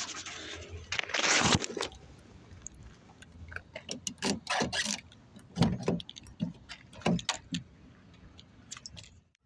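Handling noises: a loud rustling scrape about a second in, then a run of irregular small clicks and knocks, like keys and objects being picked up and moved.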